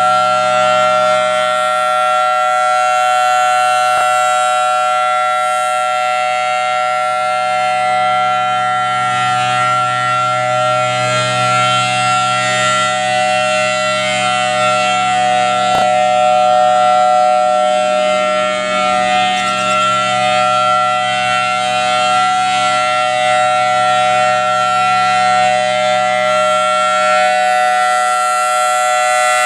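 Federal Signal Thunderbolt 1000AT storm siren sounding a loud, steady tone at constant pitch, its level swelling and easing gently as the rotating head turns.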